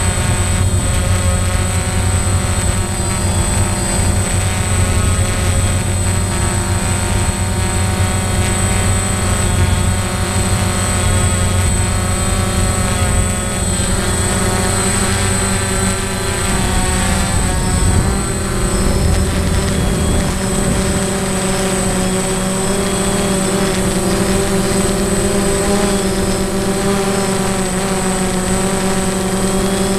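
DJI Phantom quadcopter's motors and propellers whining continuously, heard close-up from the camera on the drone. The pitch wavers and shifts about halfway through as it manoeuvres away.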